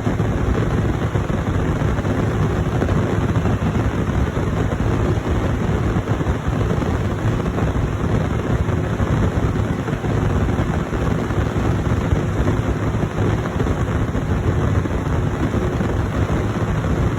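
Heavy diesel harvest machinery running steadily: a deep engine drone with a faint constant whine, and wind noise on the microphone.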